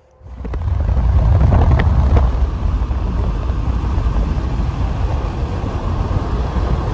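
Road and wind noise of a moving car heard from inside the car: a steady low rumble that starts suddenly just after the beginning.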